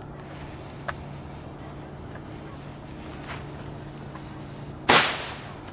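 A handheld firework tube, of the air-bomb kind, fires one sharp, loud shot about five seconds in. Before it there is only a low steady hum and faint outdoor background.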